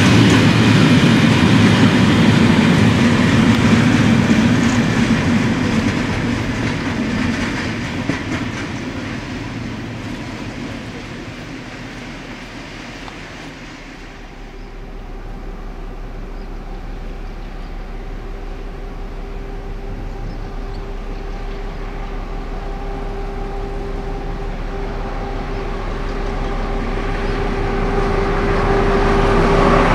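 Freight train hopper wagons rolling past with wheel clatter, fading out about halfway. Then a diesel locomotive's engine hum with a steady tone, growing louder as it approaches.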